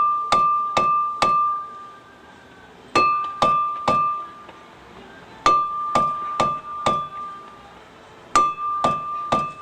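Hammer blows on a ringing metal brake part. The blows come in bursts of three to five, about two a second, with pauses of a second or two between bursts, and each blow leaves a clear ringing tone.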